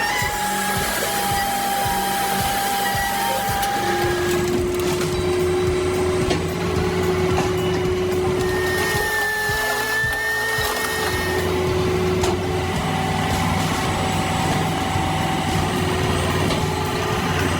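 Spaltfix K650 Vario firewood processor running: a steady machine hum with a whine that shifts to a new pitch several times as it works.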